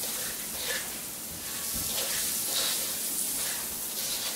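Vegan butter spread and grainy cane sugar sizzling as they melt in a hot wok, with a spatula stirring and scraping through them now and then.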